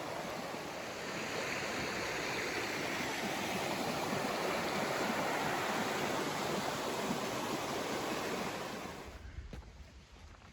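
Creek water rushing over rocks at a trail crossing: a steady rush that swells over the first few seconds and dies away about nine seconds in.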